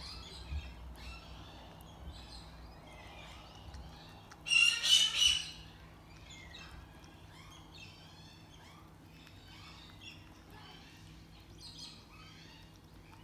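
Birds chirping and calling throughout, with one loud squawk in three quick pulses about four and a half seconds in.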